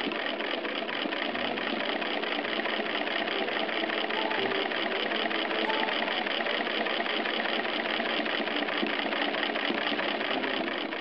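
Antique 1911 Minnesota D hand-crank sewing machine running steadily as it is cranked, a fast, even mechanical clatter of stitching.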